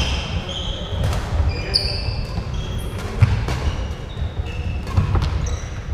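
Badminton rally: rackets striking the shuttlecock in sharp cracks, training shoes giving short high squeaks on the sprung wooden court, and thudding footfalls, all echoing in a large hall.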